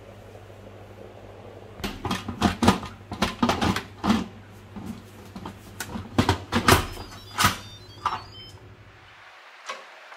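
Electric pressure cooker's lid being handled and twisted shut: a run of sharp clicks and clatters over a steady low hum, which stops near the end.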